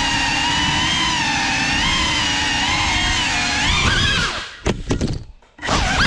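GEPRC Cinelog 35 cinewhoop drone's motors and propellers whining in flight, the pitch wavering up and down with the throttle. About four seconds in the whine cuts out as the drone strikes a table leg and drops to the floor, followed by two short bursts of the motors spinning up.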